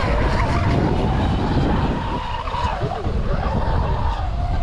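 Radio-controlled boat's motor whining, its pitch rising and falling several times as the throttle changes, over a steady low rumble of wind on the microphone.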